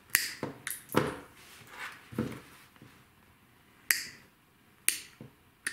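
Diagonal side cutters snipping small pink plastic pieces: a series of about seven sharp clicks, spread out, with quiet between them.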